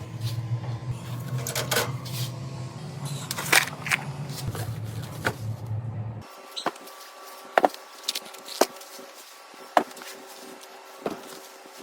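Scattered sharp clicks and knocks from hand work, over a low steady hum that cuts off suddenly about six seconds in; after that the clicks come roughly once a second.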